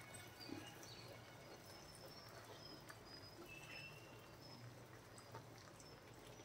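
Near silence: faint room tone with a low steady hum and a few faint, brief high chirps.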